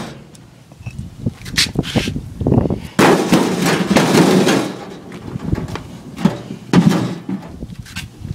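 A brick hitting a detached Chrysler car door's sheet-metal panel. There is a sharp impact about three seconds in, then about a second and a half of dense noise. Smaller knocks come earlier and near the end.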